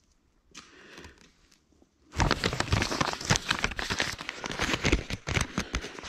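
A paper map being folded up and handled close to the microphone: dense crinkling and crackling that starts about two seconds in and goes on.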